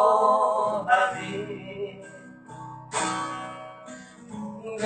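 Acoustic guitar strummed between sung lines: a voice ends a phrase in the first second, then two strong strums, about a second in and three seconds in, each left to ring and fade.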